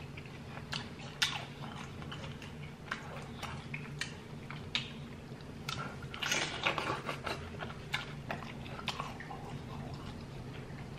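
Close-miked chewing and biting of a fried queso birria taco, with small wet mouth clicks throughout. A bigger bite into the taco comes about six seconds in.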